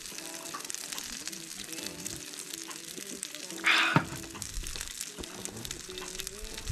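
Light background music over a faint crackling sizzle of meat cooking on a camp grill, with one short hiss about three and a half seconds in.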